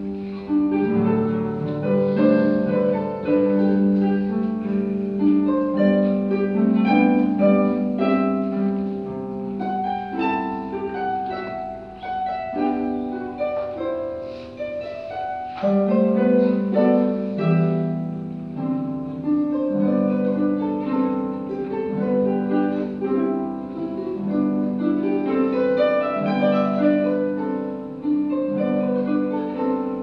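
Solo pedal harp playing a flowing piece: many plucked notes in quick succession over ringing low notes.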